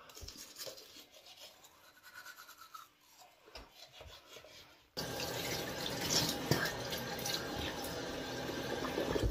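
Toothbrush scrubbing teeth in quiet, scratchy strokes. About halfway through, a louder, steady rushing noise starts suddenly.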